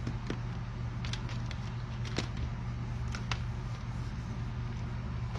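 Small scattered clicks and crackles from soldering and handling electrical wire, about half a dozen in a few seconds, over a steady low hum.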